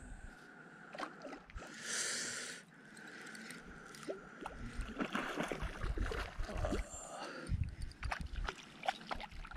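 A fishing reel being wound in steadily while a hooked rainbow trout is played, a thin steady whir that stops about three quarters of the way through, with scattered clicks and knocks from handling the tackle and water sloshing where the fish fights.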